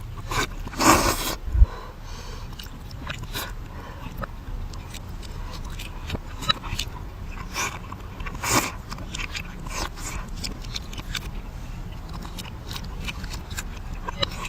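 Close-miked eating sounds played backwards: irregular chewing clicks and mouth noises, with a louder burst about a second in and another past the middle.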